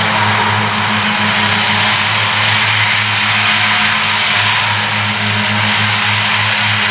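Claas Cougar 1400 self-propelled mower running steadily while mowing: a constant low engine drone under a broad, even hiss from the mower units cutting grass.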